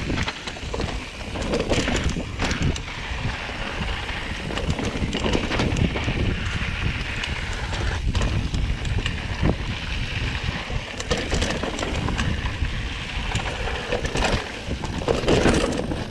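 Mountain bike descending a dirt singletrack at speed: wind on the microphone and tyre noise on loose dirt, with frequent clicks and knocks from the bike rattling over bumps.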